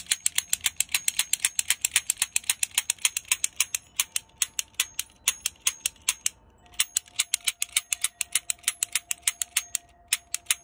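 Double-action toy cap gun revolver dry-clicking as its trigger is pulled over and over, about seven hammer clicks a second with two short breaks. The caps are not going off.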